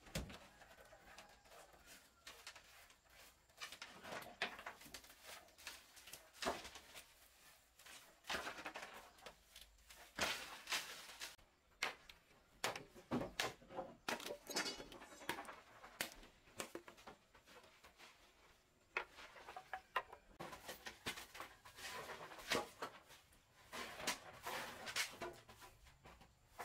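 Intermittent swishes, scrapes and knocks of hand work: a brush sweeping dust off a concrete stove top near the start, a machete striking wooden boards around the middle, and a broom sweeping a plank floor near the end.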